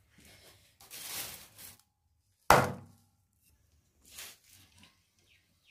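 A heavy curved knife chopping raw meat on a wooden block: one sharp chop about two and a half seconds in is the loudest sound, with softer, longer noisy sounds about a second in and again about four seconds in.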